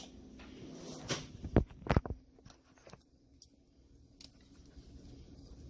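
Kitchen utensils knocking while food is being prepared: two sharp knocks about one and a half and two seconds in, then a few faint clicks.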